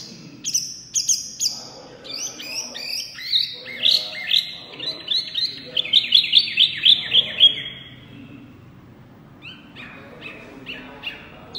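Caged mini hwamei ('wambi mini') songbird singing loudly in fast runs of repeated whistled notes that step down in pitch from phrase to phrase. After about eight seconds it pauses briefly, then starts again more quietly.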